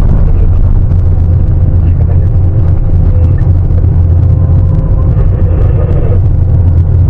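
Large hydraulic excavator's heavy diesel engine running under load in a steady low rumble, with a faint steady whine that grows stronger about five seconds in.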